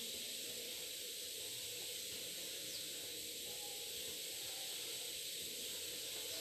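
Steady hiss of room tone with a faint steady hum, unchanging throughout. The hand mixing of the dough in the bowl makes no distinct sound.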